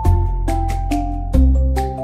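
Background music: a melody of short changing notes over a bass line and a steady beat.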